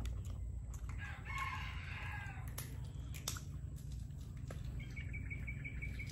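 A rooster crows once, about a second in, a call of about a second and a half. Near the end comes a quick, high, evenly spaced trill of about eight pulses a second.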